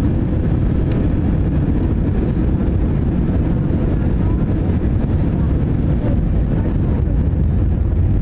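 Cabin noise inside an Airbus A320 in flight on descent: a steady low rumble of the engines and airflow, heard from a window seat over the wing.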